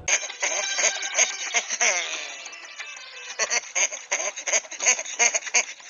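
Film soundtrack: music mixed with a man's voice in short, gliding bursts.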